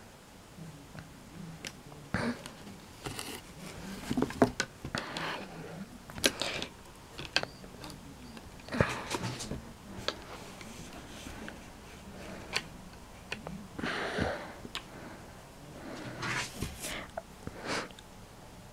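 Irregular handling noises: scattered light clicks and short rustles as a hand moves a plastic toy skeleton's limbs and then picks up a plush toy dog.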